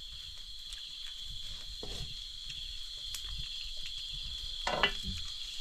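Crickets chirring steadily in one high, continuous band. Over it are light scrapes and clinks of a metal spatula in a wok as food is scooped out, with a slightly louder scrape near the end.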